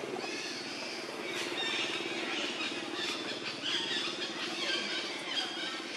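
Outdoor ambience: a steady low drone like a distant engine, with many short high chirps over it.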